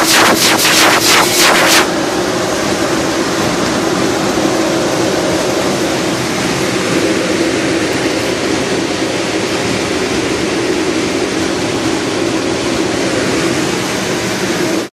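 Duct-cleaning equipment working inside sheet-metal ductwork. For about the first two seconds there is a rapid, even rattle of knocks, about four a second, from the spinning compressed-air whip. After that a steady rushing roar from the duct vacuum runs on and cuts off suddenly at the end.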